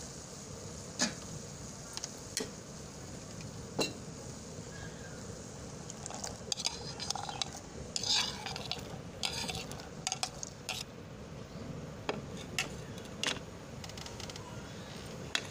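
A pot of water hisses and bubbles on the stove, with a few sharp metallic clinks against the aluminium saucepan. In the middle comes a run of splashing and rattling as phalsa berries are poured from a plastic strainer into the water.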